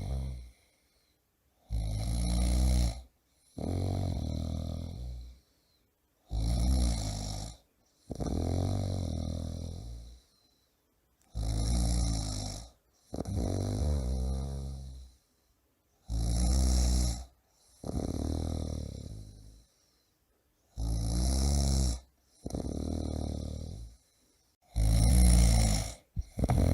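A man snoring loudly in a steady rhythm. Each breath gives a short snore followed by a longer one that falls in pitch, repeating about every five seconds with brief silences between.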